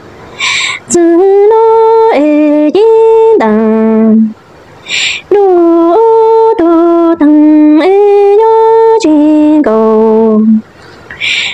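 A woman singing Hmong lug txaj (kwv txhiaj), a sung lament for an orphan, unaccompanied: long held notes with a wavering pitch that slides between steps, in phrases broken by short pauses.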